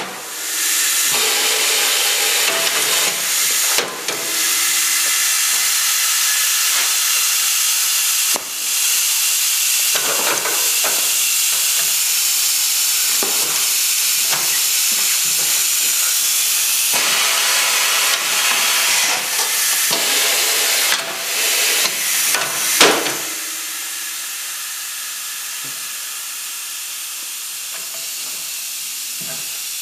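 Air hissing loudly and steadily at a pneumatic bead-breaking tire machine, with a few brief breaks. About 23 seconds in there is a short louder burst, and the hiss then carries on noticeably quieter.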